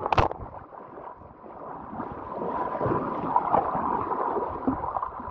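Handling noise from a phone: a sharp click right at the start, then fabric rubbing and scraping against the microphone in a continuous, irregular rustle.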